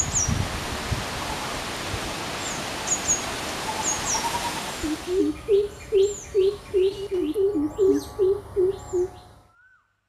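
Greater coucals giving their deep, resonant "oop-oop-oop" call, a run of low hooting notes at about three a second, two series overlapping at slightly different pitches. It begins about five seconds in and stops abruptly near the end. Before it comes a rustling hiss with a few brief high chirps from small birds, and further chirps run over the hooting.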